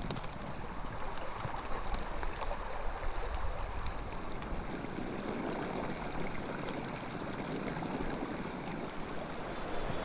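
Winter outdoor ambience: a steady rushing noise with faint scattered ticks.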